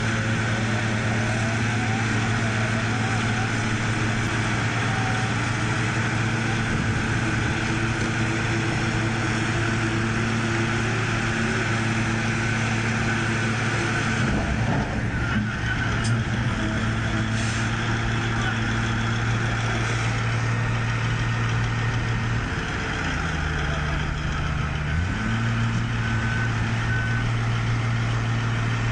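Heavy machine's diesel engine running steadily; its note drops for a couple of seconds near the end, then returns. A few short high beeps sound near the end.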